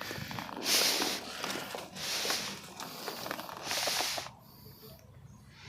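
Heavy breathing close to the microphone: three hard breaths about a second and a half apart, with faint rustling and small clicks between them.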